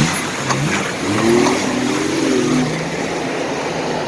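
An off-road vehicle's engine revving up for about a second and a half and easing back off, over a steady rushing noise.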